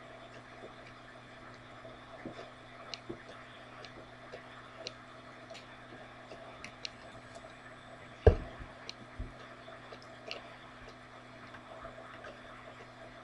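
Room tone: a low steady hum with faint scattered clicks and one sharp thump about eight seconds in.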